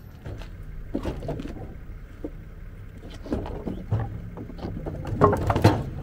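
Clothing rubbing against the microphone and scattered knocks as a man shifts wooden boards on a utility trailer's deck to get the ramps down, with a louder clatter of wood shortly before the end.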